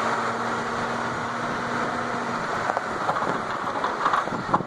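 Fire truck's engine running in traffic, heard from an open seat on the truck: a steady hum for the first half or so, then rougher, uneven noise.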